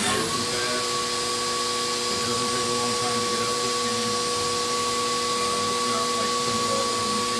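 Haas DM1 vertical machining center's spindle spinning up and then running at a steady speed: a steady whine over a steady hiss from the minimum-quantity-lubricant air mist.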